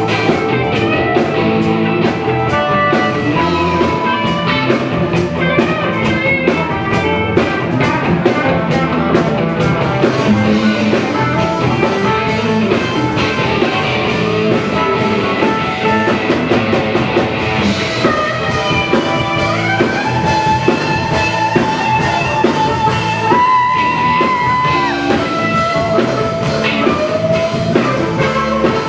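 Live rock band jamming, loud and continuous: electric guitar over a drum kit with a steady beat.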